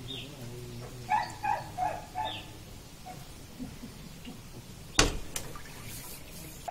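A dog barking several times in short bursts over the first two or three seconds, then a sharp knock about five seconds in.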